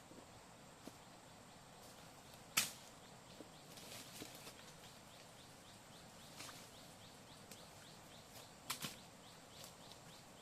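A few sharp snaps or knocks at irregular intervals, the loudest about two and a half seconds in and two close together near the end. Behind them, a faint series of short high chirps repeats a few times a second.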